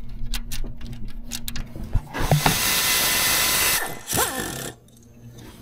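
Quick metal clicks of a tool at the valvetrain of a GM 6.2 L86 V8, then a power tool runs with a steady hiss for about a second and a half and once more briefly with a short squeal. This is the rocker arm over a broken valve spring being unbolted.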